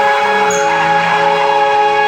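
Tyres squealing in one long, steady tone as the Daihatsu Hijet turbo is spun hard in a burnout or drift.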